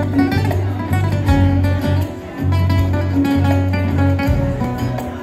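Spanish guitar played solo on a nylon-string classical guitar: plucked melody notes over low bass notes, easing off briefly about two seconds in.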